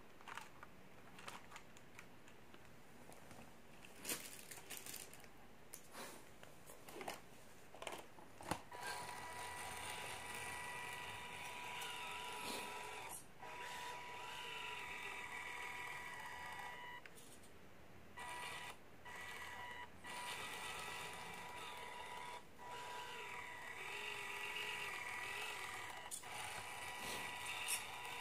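A few clicks and knocks as a mini 1:24-scale RC crawler is handled and set down. Then its small brushed electric motor and gearbox whine steadily under throttle as it crawls, cutting out briefly several times as the throttle is released.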